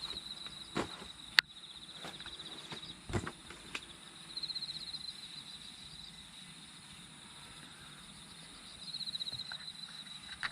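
Insects trilling steadily, swelling into pulsed chirping runs twice. A few light knocks and one sharp click sound in the first four seconds.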